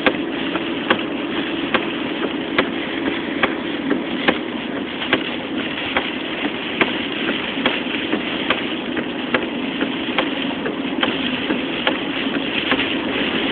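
Inside a car in hurricane rain: a steady hiss of rain and road noise over the engine, with a sharp click repeating evenly a little more than once a second.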